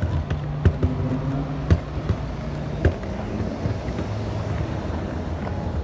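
Footsteps on stone paving: a few sharp, uneven taps in the first three seconds, over a steady low hum.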